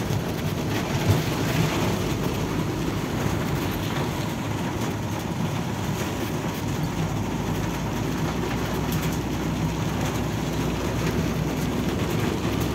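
Hail and heavy rain pelting a car's roof and windows, heard from inside the cabin as a steady, dense clatter with scattered sharper ticks.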